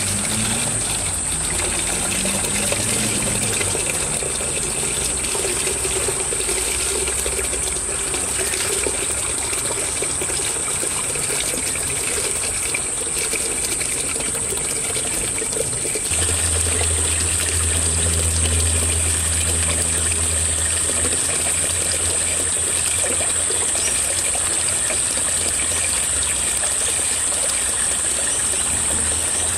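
Water trickling and pouring steadily as sediment is drained from an aquaponics radial flow filter barrel through a hose and tap into a bucket, with water stirred in the barrel. A low hum comes in about halfway through.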